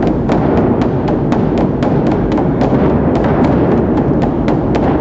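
Large Chinese barrel drums beaten in a fast, loud drumming performance: a dense booming rumble with sharp stick strikes about four times a second.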